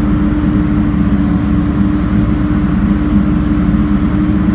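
Engine of construction equipment such as an excavator running steadily, with a constant hum over a fast low throb.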